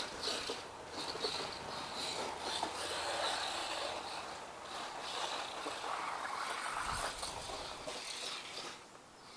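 Four-wheel-drive RC truck driving through snow, its motor and tyres making a steady, wavering mechanical noise, with a brief low thump about seven seconds in.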